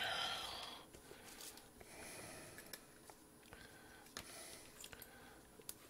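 Quiet room tone with a few faint, scattered clicks: the small handling noises of alligator-clip test leads being clipped onto the pins of a small circuit board.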